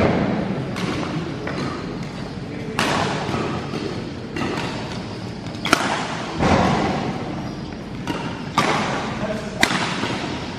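Badminton rally: rackets striking the shuttlecock in sharp cracks at irregular intervals of one to two seconds, mixed with thuds of players' feet on the court, echoing in a large sports hall.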